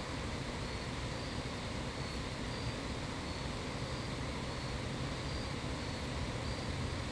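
Steady low outdoor rumble, the kind a distant vehicle or aircraft gives, with faint short high insect chirps about once a second.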